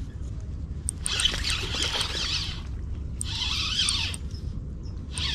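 Fishing reel being cranked in three separate bursts of about a second each, a gritty whirring retrieve, over a steady low rumble.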